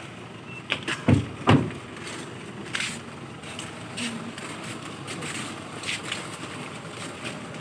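Car doors being slammed shut: two loud thumps about a second in, half a second apart, with a lighter knock just before. Scattered light clicks follow.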